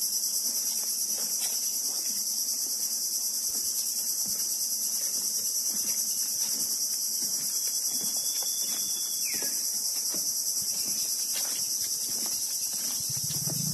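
Steady, high-pitched insect chorus shrilling without a break. Near the middle a short high whistle ends in a falling note, and a low hum comes in near the end.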